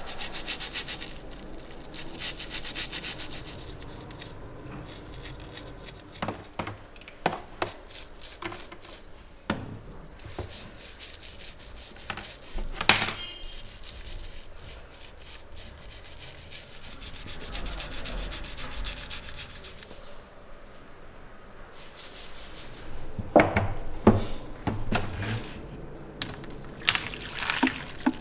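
Irregular scraping and rubbing from hand work on old microphone parts, broken by sharp clicks and knocks, which come thicker and louder in the last few seconds.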